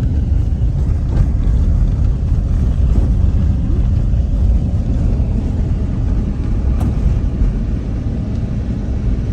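A car driving along, giving a steady low rumble of road and engine noise.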